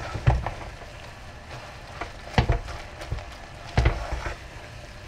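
Fried eggplant curry being stirred in a pot, with the sauce sizzling steadily underneath. A spoon knocks against the pot three times.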